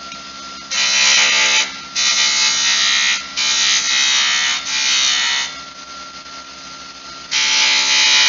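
Wood lathe running with a steady hum while a skew chisel cuts a bead on a spinning wooden spindle: five short cutting passes, each about a second long, with shorter gaps between them and a longer pause before the last.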